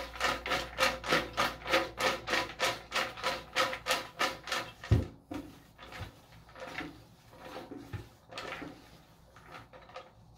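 Paper raffle tickets swishing inside a plastic bucket as it is shaken, about three strokes a second, for the first half. After a single dull knock, a hand rummages through the tickets in fainter, scattered rustles.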